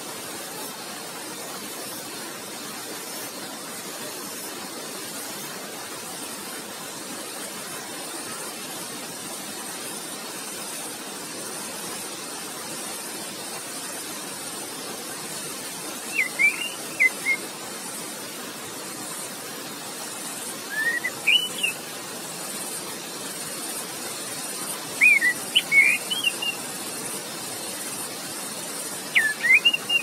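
Steady rush of running water, with an orange-headed thrush singing short whistled phrases that slide up and down, four times in the second half.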